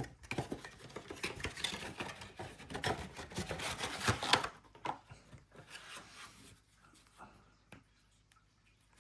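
Trading cards and their cardboard packaging being handled: dense rubbing and scraping with many small clicks for about four and a half seconds, then a few light taps and clicks.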